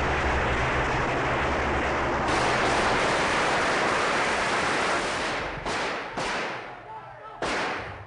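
Loud, rapid automatic gunfire from Guardia Civil submachine guns, a dense rattle echoing in a large hall for about five seconds, then thinning to a few separate shots near the end.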